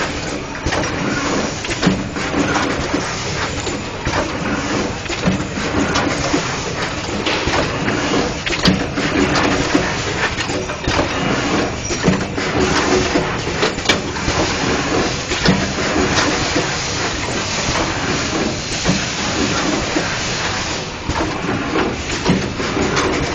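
LH 200 automatic screen printing machine running, with frequent irregular clacks and knocks from its moving parts over a steady mechanical hum.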